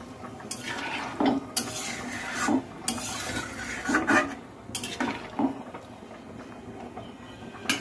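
Metal spatula stirring a thin potato and poppy-seed curry in a metal kadai: wet scraping along the pan's bottom and sides, with irregular clicks of metal on metal.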